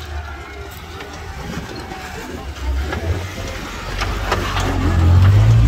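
Engine of an off-road 4x4 running, growing louder toward the end as it works harder or comes closer.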